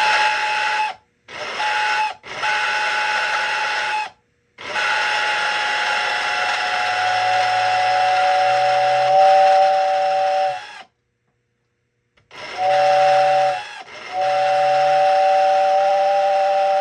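American Flyer #568 toy-train steam whistle blowing in about six blasts of uneven length, the longest about six seconds. Each blast is a breathy hiss with a steady whistle tone, which becomes a two-note chord in the later blasts, over a low hum. The whistle works only to some degree, and it is unclear whether it sounds as it should.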